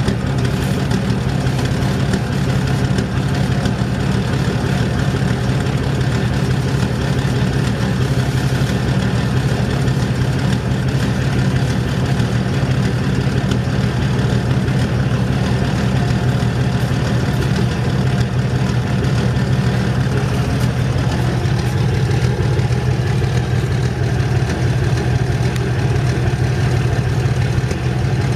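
Six-cylinder car diesel engine idling steadily, with no revving.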